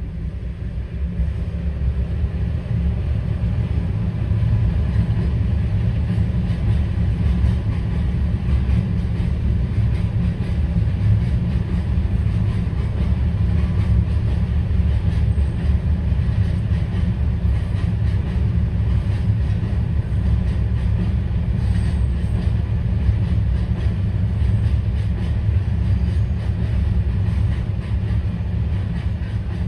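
Diesel-hauled freight train rolling past on the rails, a steady low rumble that builds over the first few seconds and then holds.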